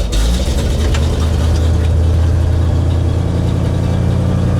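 1966 Chevrolet C60 truck engine idling steadily just after being started, with a little choke on.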